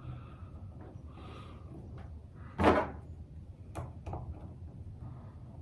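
Handling noises from a cordless oscillating multitool and its parts: faint rustling, a sharp hard clack a little under three seconds in, and two lighter clicks just after.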